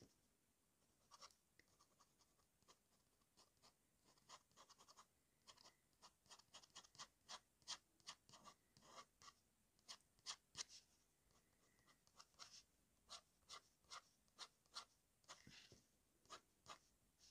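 TWSBI fountain pen nib scratching on paper in short, quick strokes, faint. The strokes are sparse at first and come in a rapid run from about six seconds in.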